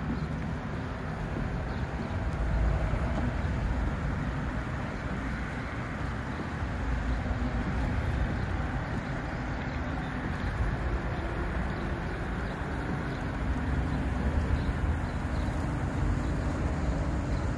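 Outboard motors of small motorboats running as the boats pass across the bay: a steady low drone that swells a few times.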